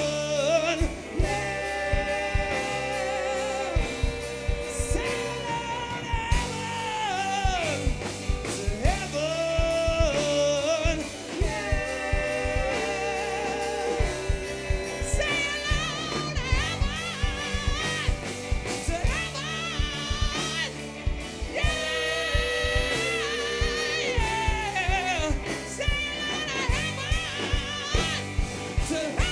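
Live rock band playing a slow grunge ballad: electric guitars, bass and drum kit under a lead singer holding long, high sung notes with vibrato.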